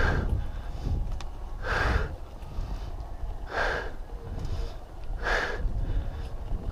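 A cyclist breathing hard while pedalling, a loud breath about every two seconds, four in all, over a steady low rumble.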